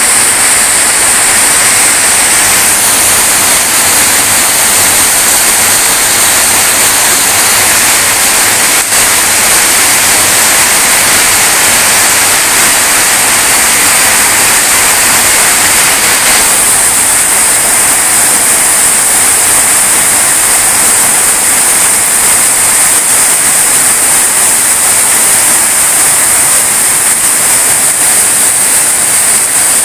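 Heavy rain pouring steadily: a loud, dense hiss of a downpour, turning a little brighter about halfway through.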